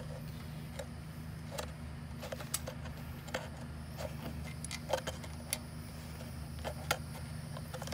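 Scattered light metallic clicks as an engine oil drain plug is turned out by hand, about seven over the span, over a steady low hum.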